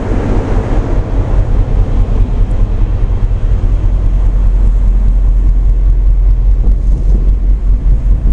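Loud, steady low rumble of a tugboat underway.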